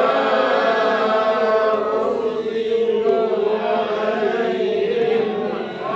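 Several voices chanting a Quranic verse together in unison, slowly and with long drawn-out notes held almost without a break. The line is 'wa mā ursilū ʿalaihim ḥāfiẓīn'.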